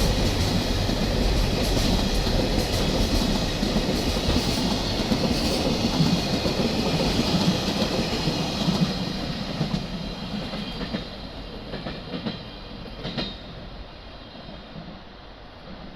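Train running past on the line, steady and loud at first, then fading away over the last several seconds as it recedes.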